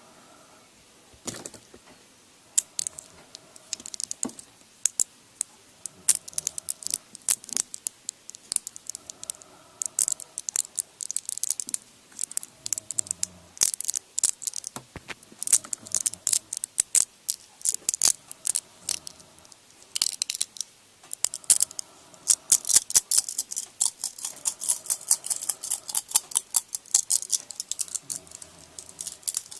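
Fingernails tapping quickly and irregularly on small plastic caps close to the microphone, a stream of sharp clicks in clusters that grow denser in the second half.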